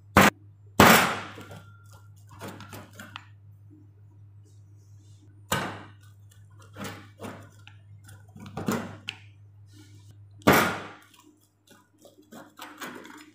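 Pizza cutter wheel slicing through a crisp pizza crust on a stainless steel tray: a handful of sharp crunching clacks at irregular intervals, the loudest about a second in and again near the end, over a steady low hum.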